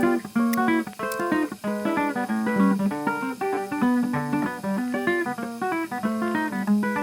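Background music: guitar playing quick plucked notes.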